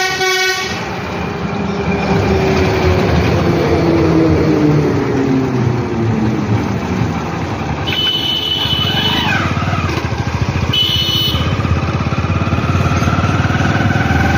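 A vehicle engine runs under road noise while driving, its pitch easing down over the first few seconds. A horn blares right at the start, and two shorter, higher-pitched horn beeps sound about eight and eleven seconds in.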